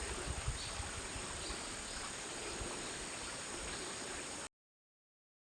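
Outdoor field ambience: insects chirring with a steady high buzz over low rumble, which cuts off abruptly into dead silence about four and a half seconds in.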